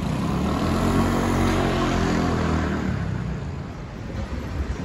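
Motor scooter passing close by, its engine running with a steady buzzing note that drops in pitch and fades about three seconds in as it goes away, over steady street noise.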